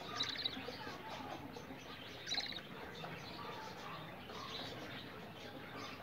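Budgerigar chirping: short raspy chirps, two clearer ones near the start and about two seconds in, among fainter chirps.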